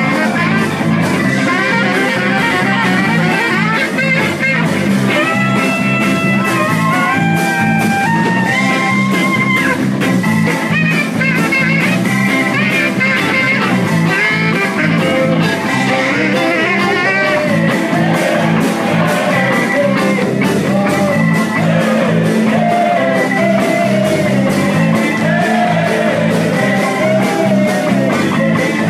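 Live band playing blues-rock, with electric guitar lead lines over a steady drum beat; the guitar notes step up and down and later bend.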